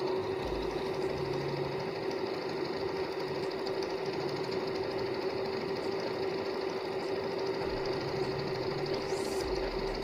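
Janome Memory Craft 6000 computerised sewing machine running steadily, stitching a programmed sequence of combined decorative patterns, a zigzag moon design and a mountain design, into cloth.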